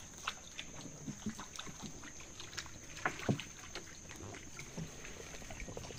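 Light, irregular water splashes and small knocks on a stream's surface, a few louder ones around the middle, over a steady high insect drone.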